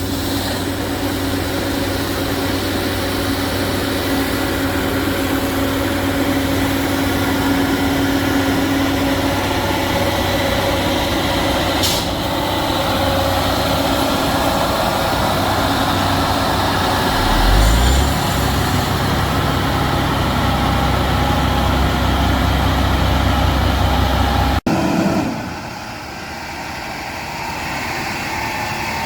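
Heavy diesel road-construction machinery running steadily. Partway through, the engine picks up to a higher, louder pitch and holds there. It then cuts off suddenly and gives way to a quieter engine.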